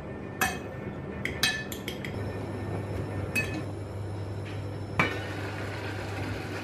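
A metal fork clinking and scraping on a china plate as a piece of floured salt cod is turned in beaten egg, then clinks of a stainless-steel pot lid being lifted off. A low steady hum comes in about two seconds in.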